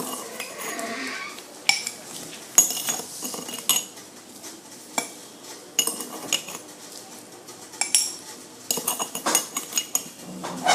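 Metal spoons and measuring cups clinking and scraping against dishes while sugar is scooped out: many irregular sharp clinks, some ringing briefly.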